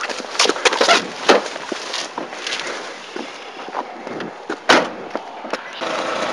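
Scattered knocks and thumps, with one sharp knock like a car door shutting about three-quarters of the way through. Near the end a car engine starts and runs steadily.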